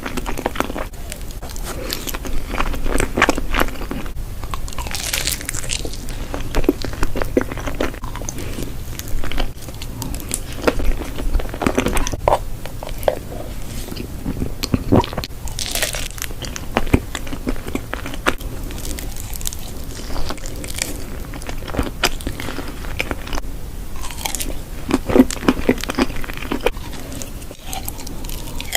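Close-up eating sounds: crunchy bites and chewing, with irregular crackling clicks and mouth noises throughout.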